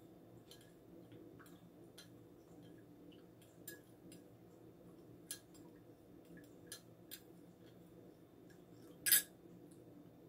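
Metal spoon stirring sugar into coffee in a ceramic mug, clinking lightly and irregularly against the sides, with one louder sharp sound near the end.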